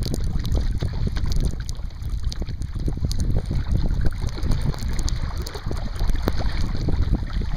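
Wind buffeting the microphone with a heavy, gusting rumble, over choppy water slapping and splashing against a sea kayak's hull in many small, irregular hits.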